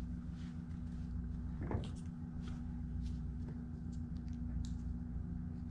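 Faint scattered clicks and ticks of small stainless screws and hardware being handled, over a steady low hum.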